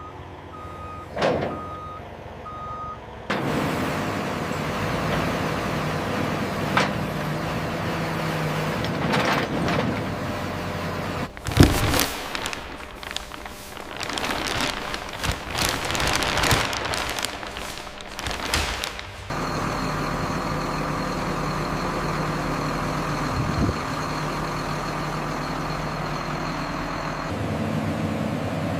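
A heavy machine's reversing alarm beeps four times, about once a second, then its engine runs steadily. Through the middle stretch there are loud metallic clanks and knocks, then the engine settles into a steady run again.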